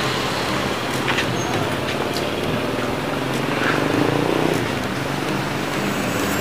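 Steady street traffic noise, cars and motorbikes passing, with a few faint ticks.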